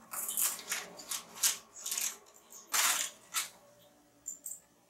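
A cat moving about inside a cardboard box, its claws scratching and rustling the cardboard in a string of short scrapes. The loudest comes about three seconds in, and they die away near the end.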